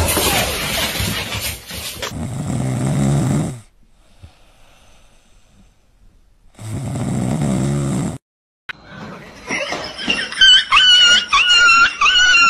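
A dog snoring: two long, low rasping breaths a few seconds apart. After a break, a rapid string of short high-pitched squeaks, about two to three a second, takes over as the loudest sound.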